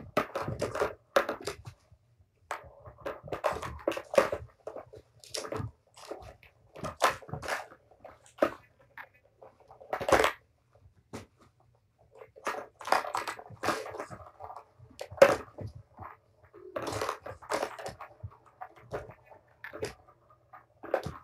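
Kittens batting at a plastic Tower of Tracks cat toy: the balls rattle and roll around its plastic tracks in irregular spells, with sharp clicks and knocks between them.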